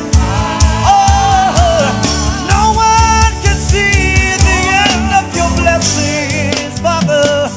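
Gospel praise music: a lead voice singing a held, wavering melody over a band with a steady beat.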